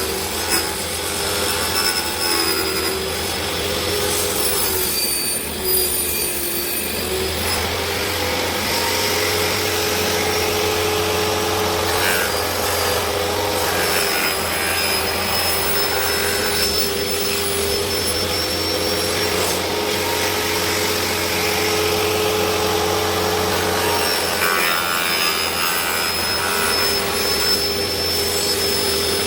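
A woodworking power tool's electric motor running steadily with a whine, its note shifting briefly a few times as it works the wood.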